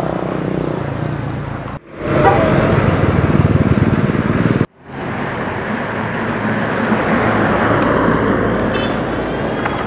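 Road traffic passing close by, heard in short clips joined by abrupt cuts: a truck and a motorcycle going past, then a large bus passing near, its noise swelling as it goes by.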